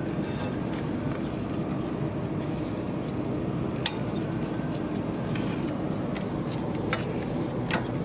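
A few sharp little metallic clicks as the parking brake cable and its spring clip are worked loose from a rear brake caliper by hand, over a steady low background rumble.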